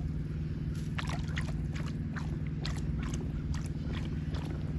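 Dog swimming in a pond, the water sloshing and splashing in short scattered bursts over a steady low hum.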